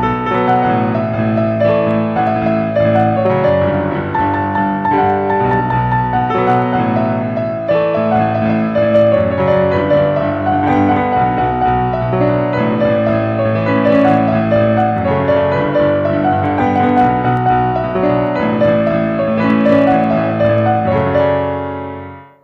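Background piano music, a steady flow of sustained notes, fading out just before the end.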